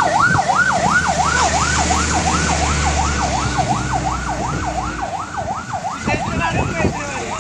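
Fire engine's siren in a fast up-and-down wail, about three sweeps a second, over the rumble of the truck's engine as it drives past; the engine rumble drops away about five seconds in as the truck moves off.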